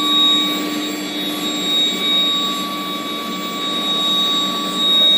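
Steel bar hot-rolling line with its electric heating furnace running: a steady rushing machine noise with several constant whining tones held throughout, one low and others higher up.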